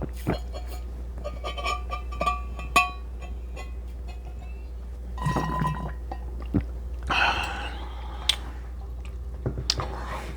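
Drinking lemonade from a glass: glass clinks and short ringing taps, then a few sips and swallows, over a steady low hum.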